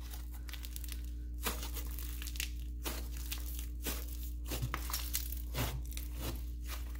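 Dense snow fizz slime being squeezed and stretched by hand, giving soft irregular crinkling and crackling with small tearing sounds as the slime rips a little.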